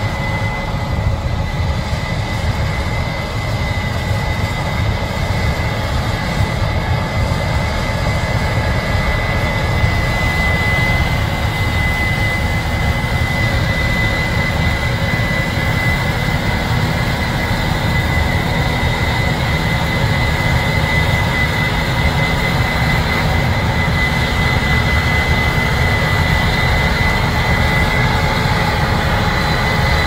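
Case IH 8230 combine harvesting soybeans, its engine and threshing machinery running steadily: a low drone with a high, even whine over it that grows stronger midway, joined by a tractor running alongside.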